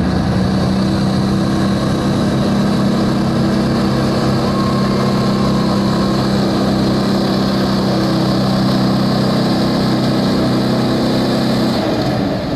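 Stock gas pickup truck engine held at full throttle, steady and loud, pulling the weight sled down the track on a steady run. Near the end the engine drops off as the run finishes.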